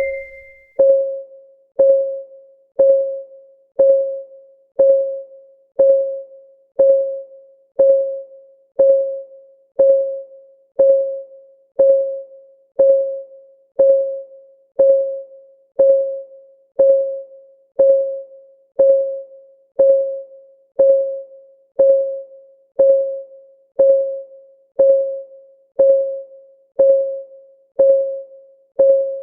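Countdown timer's ticking sound effect: a short, pitched tock once a second, every tick at the same pitch and dying away quickly, with a soft keyboard-like tone.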